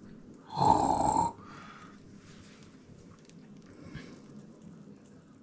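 A short, loud, rough vocal sound, like a snort or grunt, lasting under a second about half a second in.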